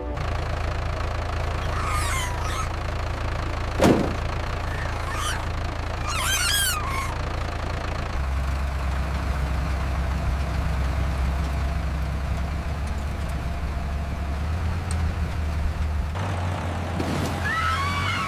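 Tractor engine running steadily, with a sharp knock about four seconds in. A few short, high, wavering cries come over it, twice early on and again near the end.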